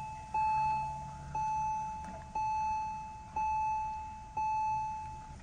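Dashboard warning chime of a 2002 Porsche 911 (996) sounding with the ignition switched on. It is a single tone that starts sharply and fades, repeated about once a second, five times.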